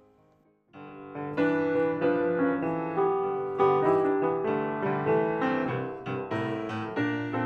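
Piano music starts just under a second in, after a moment of near silence, and carries on with held notes and chords.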